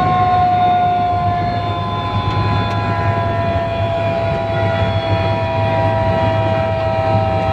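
Helicopter turbine whine and rotor drone heard inside the passenger cabin. The whine falls slowly in pitch over a steady low hum as the helicopter sets down on the landing pad.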